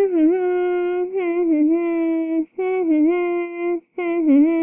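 A girl's voice humming a wordless tune in three phrases of long held notes, each with small dips in pitch.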